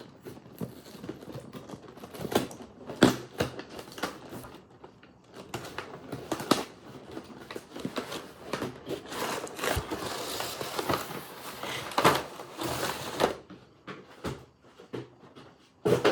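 Packaging being opened and handled: irregular clicks, knocks and crinkling, with a denser stretch of rustling about two-thirds of the way through.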